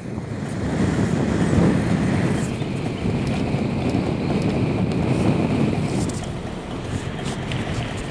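Car driving along a paved road, heard from inside the cabin: steady road and engine noise, with a few light ticks near the end.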